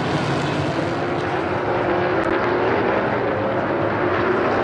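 NASCAR Next Gen stock cars' pushrod V8 engines running hard together, the engine note climbing steadily in pitch as they accelerate.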